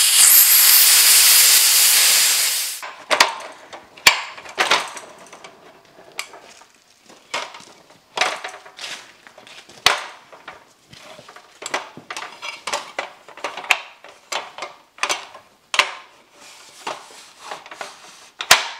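Compressed air hissing out of the drain of the shop air line's water separator as the system pressure is bled off, cutting off abruptly about three seconds in. Then a string of irregular clanks and knocks as a ladder is handled and set up.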